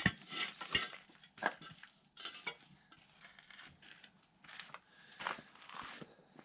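Irregular metal clinks and rattles, a dozen or so short knocks spread unevenly, from old steel camper jacks being handled and set up.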